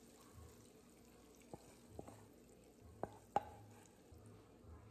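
Four light, short clinks, like something hard tapping a dish, coming as two pairs with the last two loudest and briefly ringing, over quiet room tone.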